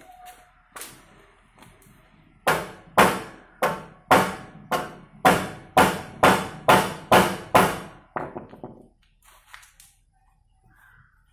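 A run of about a dozen sharp knocks, each ringing briefly, roughly two a second, starting a couple of seconds in and stopping about three seconds before the end, then a few faint clicks.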